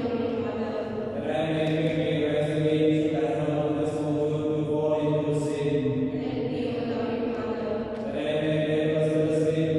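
Slow liturgical chant sung on long, steady held notes, with a change of phrase about a second in and again near the end.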